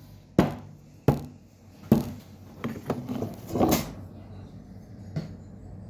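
A series of sharp knocks: three loud ones about a second apart, then softer clattering and one last knock near the end.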